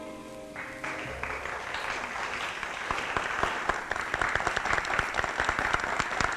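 The last held notes of the song's instrumental accompaniment die away, then an audience breaks into applause: dense, irregular clapping that grows fuller over the next few seconds.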